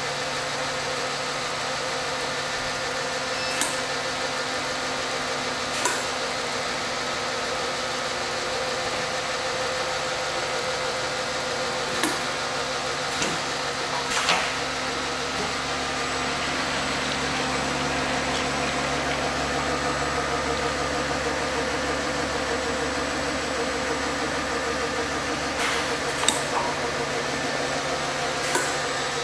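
Recirculating pump filler and its bottle conveyor running with a steady, many-toned machine hum that grows fuller in the middle. About eight short clicks and knocks come at uneven intervals as plastic jugs move along the line.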